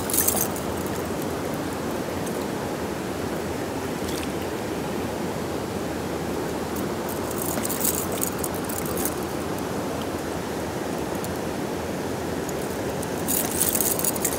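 River water flowing steadily, with a metal fish-stringer chain and its snap clinking in short bursts at the start, about halfway through and again near the end as a caught trout is handled on it.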